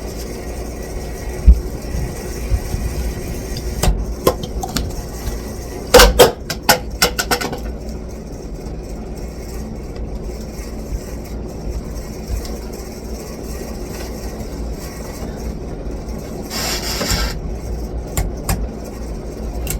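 Port Severn ceiling fan running with a steady low hum and irregular clicks and knocks, a cluster of them about six seconds in. This is the noise the owner is still trying to trace and fix.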